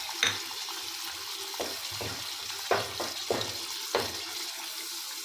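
Thick butter chicken curry sizzling in a steel pot with a steady hiss while a wooden spoon stirs in the butter, knocking against the pot several times.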